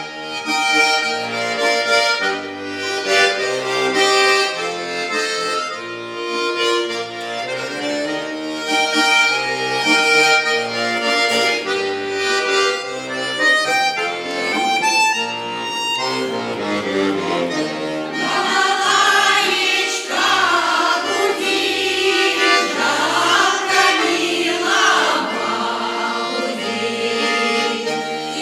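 Accordion plays an instrumental introduction in a folk dance tune, with sustained chords over a steady bass line. About two-thirds of the way in, a choir of voices comes in singing over it.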